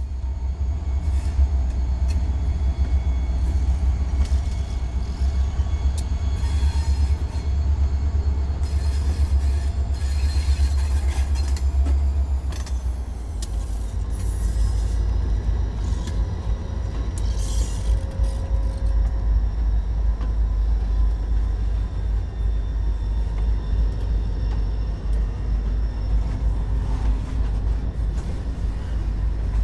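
Diesel freight locomotives passing close by, their engines making a heavy low rumble through the first half, then freight cars rolling past on the rails with a steady rumble and a few brief high-pitched squeals.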